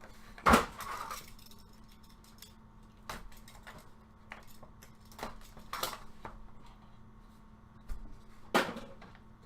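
Handling of a trading-card box and its packaging: a few sharp knocks and short rustles, loudest about half a second in and again near the end, over a faint steady low hum.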